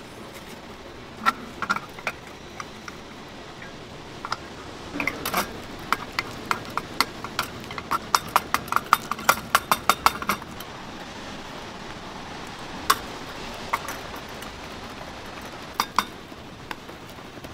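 Metal utensils clinking and tapping while dalgona sugar candy is made. A few scattered taps, then a quick run of taps, about four a second, from about six to ten seconds in, over a steady background hiss.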